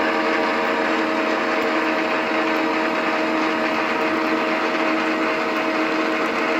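Geared-head milling machine running steadily after start-up, its spindle turning an edge finder. The motor and spindle gearing give an even hum holding several steady tones.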